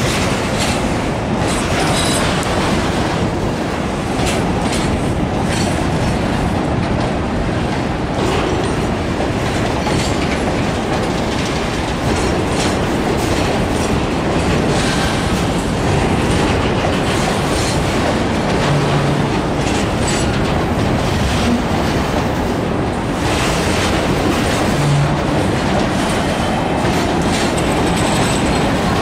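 Empty grain hopper wagons of a broad-gauge freight train rolling past at close range: a steady, loud rumble of steel wheels on rail, with repeated clacks as the wheels cross the rail joints.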